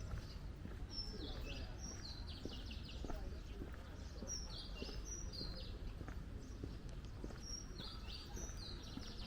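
Birds chirping in several quick runs of short, high notes, over a low steady city rumble.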